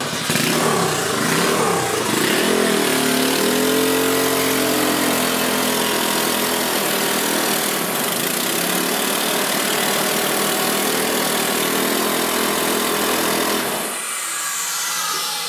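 Turbocharged air-cooled dirt bike engine running, which its builders judge is not getting enough fuel. It revs up a few seconds in, then runs steadily and stops near the end, leaving a high whine that falls in pitch.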